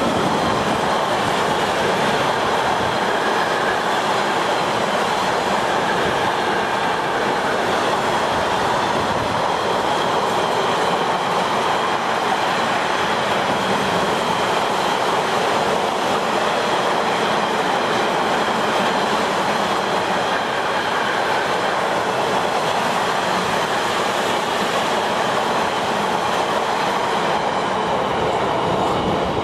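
Long freight train of enclosed double-deck car-carrier wagons rolling past close by: a steady, loud rush and rumble of steel wheels on the rails.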